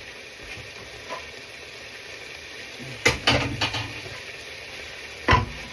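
Plantain frying in oil in a pan, a steady sizzle, with a short burst of clattering about three seconds in as the pan's contents are handled.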